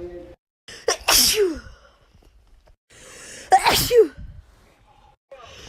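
A young woman sneezing twice, about a second in and again midway. Each sneeze is a sharp burst ending in a voiced sound that falls in pitch, and the second follows an audible in-breath.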